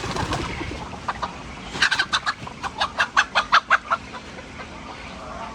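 A chicken clucking in a quick run of about a dozen sharp clucks, some five a second, after a brief noisy rustle at the start.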